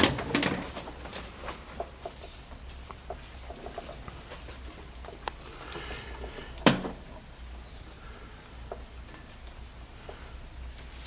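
Rainforest insect giving a steady high-pitched buzz, with scattered small clicks and one sharp knock a little past halfway.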